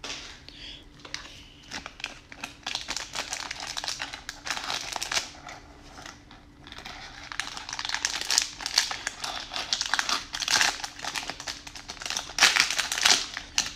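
Plastic wrapper of a Topps baseball card fat pack crinkling as it is handled and pulled open by hand. It gives irregular crackles that grow busier and louder in the second half.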